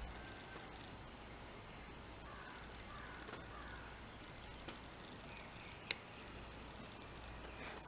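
Insects chirping in a quiet rural yard: short, high-pitched chirps repeating every second or so, with faint bird calls, over a low steady outdoor hum. A single sharp click sounds about six seconds in.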